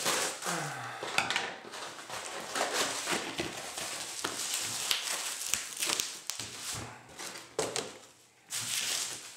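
A cardboard parcel being opened by hand, with cardboard and bubble-wrap packaging crinkling and crackling in a dense, irregular run of rustles and sharp clicks.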